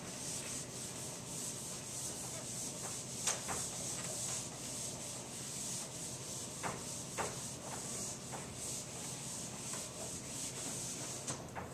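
Whiteboard eraser rubbing across a whiteboard in repeated wiping strokes, with a few light knocks.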